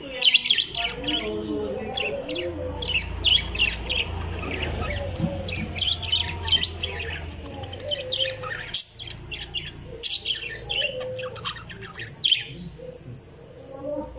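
Parakeets chirping and chattering in quick, overlapping chirps, with a brief break about nine seconds in.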